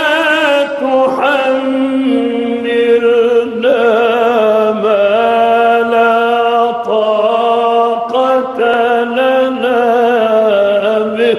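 A man chanting Quranic verses in melodic tajweed recitation: long drawn-out phrases with held notes and ornamented pitch turns, broken by a few short breaths.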